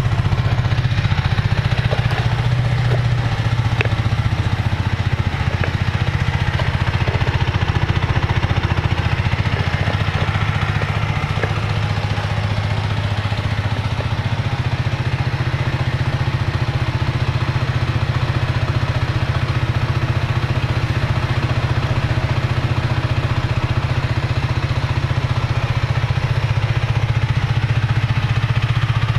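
Aprilia RS4 125's stock single-cylinder four-stroke engine idling steadily through the standard exhaust.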